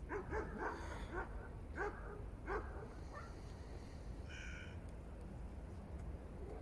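Animal calls: a run of short, harsh calls in the first two and a half seconds, then a single higher call about four seconds in.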